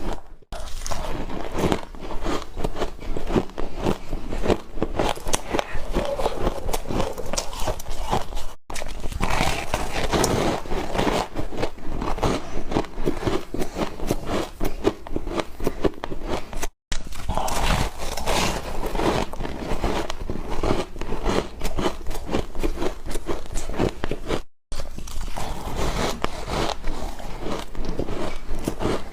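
Ice being bitten and chewed close to the microphone: a dense run of sharp crunches and crackles. The sound drops out briefly about every eight seconds, where one clip cuts to the next.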